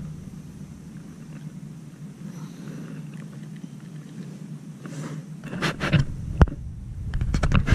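Handling noises from unhooking a small grouper in a kayak: a low steady rumble, then from about five seconds in scattered clicks, scrapes and knocks of the hook, jig and fish against hands and the hull, with one sharp knock and a quick cluster of clicks near the end.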